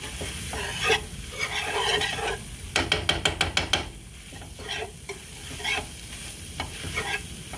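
Wire whisk stirring and scraping through crumbled browned sausage and flour in a frying pan, working the flour into the sausage grease. About three seconds in, the whisk rattles quickly against the pan, about nine fast clicks in a second.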